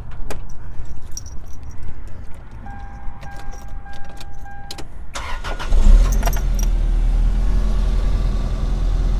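Keys jingling and clicking at the ignition of a 1996 Toyota Estima Lucinda, then a steady dashboard warning tone for about two seconds. A little past halfway the starter cranks briefly and the 2.4-litre four-cylinder engine catches and settles into a steady idle.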